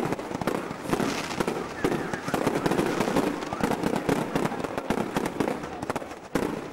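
Fireworks going off: a dense, irregular string of bangs and crackling from bursting aerial shells and crackling fountains.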